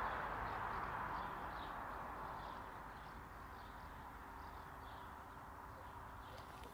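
A steady outdoor hiss cuts in, loudest at first and easing off over the first couple of seconds. Faint bird chirps repeat above it.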